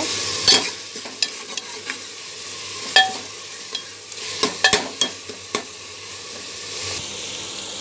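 Steel ladle stirring turmeric powder into onion-garlic masala frying in oil in a pressure cooker: a steady sizzle, louder for the first half-second, with sharp clinks and scrapes of the ladle against the pot, several in quick succession midway.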